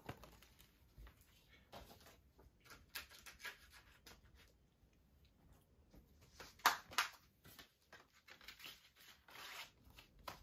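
A plastic Blu-ray case and its packaging being handled: scattered faint clicks, scrapes and rustles, with a louder pair of scrapes about two-thirds of the way through.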